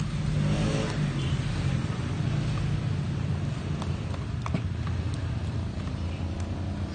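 A steady low motor hum, with a short gliding whine about half a second in and a few light knocks in the middle.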